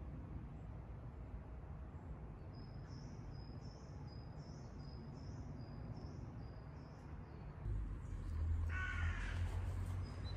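A crow caws once near the end, over a low rumble like wind on the microphone that grows louder shortly before. Earlier, a faint high chirp repeats about twice a second.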